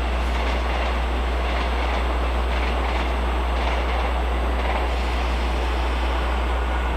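A train running along the track with steady, continuous wheel-and-rail noise that neither builds nor fades.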